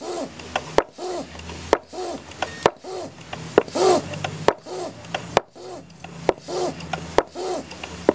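High-pressure PCP hand pump being worked in a steady rhythm, about nine strokes at roughly one a second. Each stroke gives a squeak that rises and falls in pitch and a sharp click, as the pump builds pressure toward 1000 PSI.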